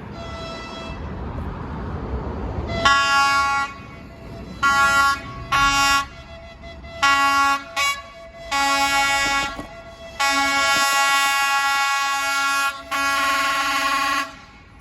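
ChS6 electric locomotive sounding its horn in a series of about eight blasts, short and long, starting about three seconds in. Under it is the rising noise of the train rolling past.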